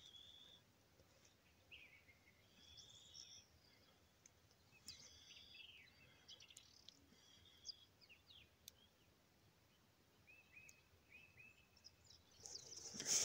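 Faint songbird calls, short chirps and whistles, some sliding in pitch, scattered over a quiet forest background. A brief loud rustle comes right at the end.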